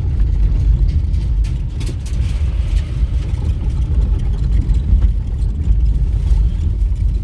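Steady low rumble of a moving vehicle: engine and road noise with no sharp events.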